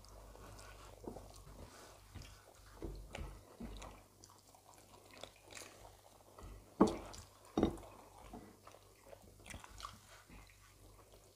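Mouth and hand sounds of two people eating rice and stew with their fingers: chewing, biting and soft squishes of food being gathered on the plates. About seven seconds in there are two louder knocks, under a second apart.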